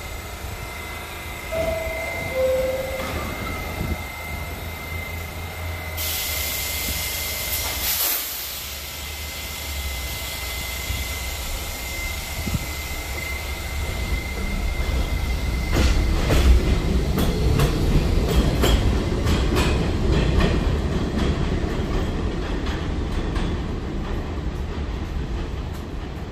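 R68A subway train: the door chime sounds two descending tones, then the train pulls out of the elevated station. Its motors and wheels grow louder past the middle, with rapid clicking of wheels over rail joints and some wheel squeal.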